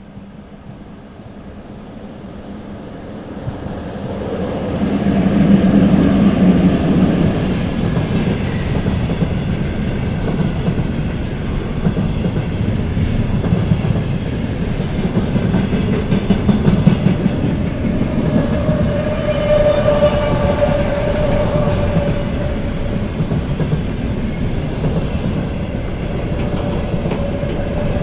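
Container freight train approaching and then passing close, its wagon wheels rolling loudly on the rails. About two-thirds of the way through, the wagons start giving off an odd steady whining tone.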